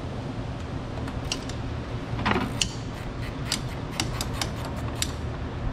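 Ratchet wrench clicking in short, irregular strokes while loosening the 8 mm nut on the negative battery cable terminal.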